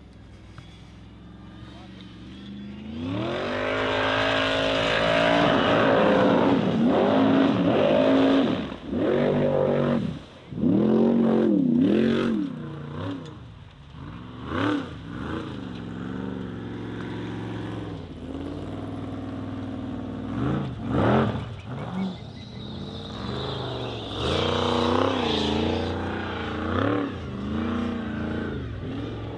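Off-road racing buggy's engine revving hard, its pitch swinging up and down every second or so as the throttle is opened and lifted. It is faint at first and loud from about three seconds in.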